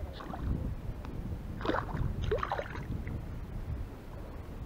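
Hooked fish splashing at the water's surface as it is played in on light spinning tackle, in a few quick splashes about two seconds in, over a steady low rumble of wind on the microphone.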